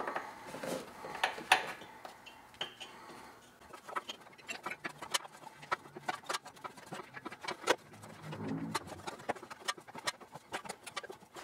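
Irregular small metallic clicks and ticks of hand work in an engine bay as a compression tester's hose fitting is threaded into a spark plug hole, coming thickest in the second half.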